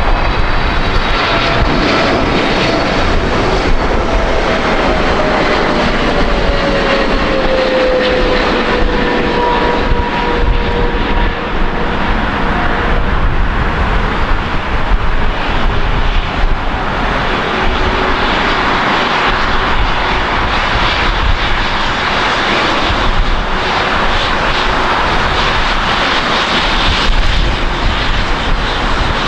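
Boeing 777F freighter's GE90 turbofan engines on final approach and landing: a loud, steady jet roar. An engine whine falls in pitch over the first several seconds as the aircraft passes.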